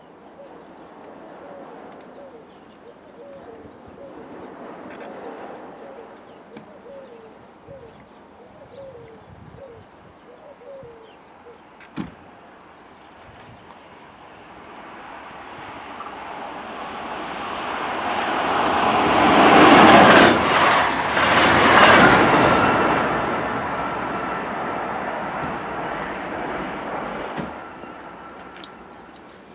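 A train passing through at speed: a rushing rumble swells over several seconds, peaks twice about two-thirds of the way in, then fades. Earlier a bird calls repeatedly, and a single sharp click comes near the middle.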